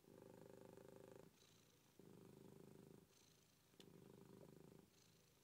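A cat purring faintly, the purr swelling for about a second and easing off for a shorter spell, again and again with each breath in and out.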